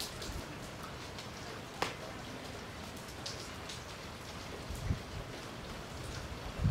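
Light rain falling, a steady hiss with scattered drops ticking close by, one sharper drop just under two seconds in. A low rumble of wind on the microphone starts near the end.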